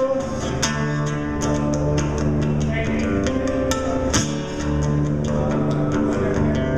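Instrumental passage of a pop-rock song, with guitar and bass guitar playing over regular drum hits and no singing.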